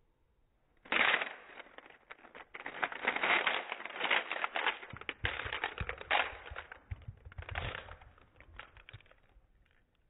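Plastic 3x3 speed cube being popped apart by hand. A sudden loud crack about a second in, then a run of dense plastic clicks and rattling as the pieces come loose and are handled, dying away near the end.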